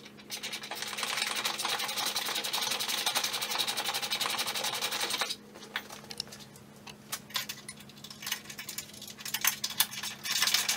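Rapid mechanical rattling from a tool fastening a bumper bull bar's mounting bolts, in two spells: about five seconds at the start and again for a second or two near the end, with a few scattered clicks between.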